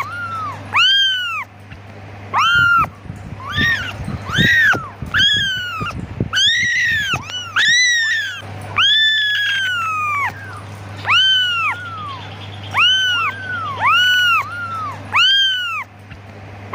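Young kittens meowing over and over for their mother: short, high-pitched calls in quick succession, some overlapping near the middle, over a steady low hum.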